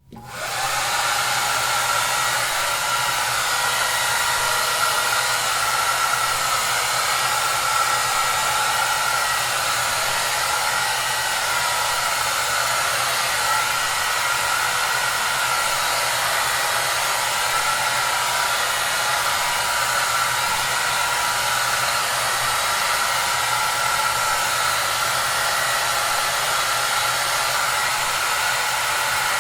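Hair dryer blowing, a steady rush of air with a steady whine and a low hum beneath. It comes in from silence, reaching full strength within about a second, then holds even.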